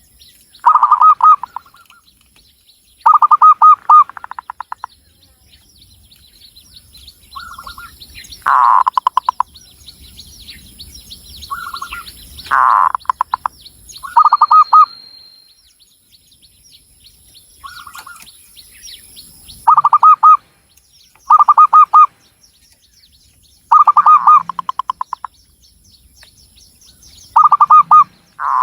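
Zebra dove (Javanese local perkutut) singing: repeated phrases of fast, rolling coos, a new phrase every two to three seconds, some with softer trailing notes. Faint high chirping runs underneath.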